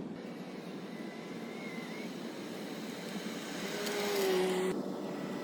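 Car engine running steadily, a little louder about four seconds in.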